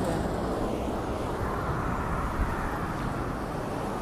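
Steady road traffic noise: a low, even rumble of vehicles on the highway, with no single vehicle standing out.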